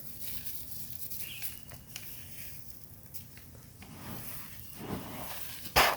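Charcoal being sorted by hand: faint rustling and patter of small pieces, with a short, loud crackling clatter near the end.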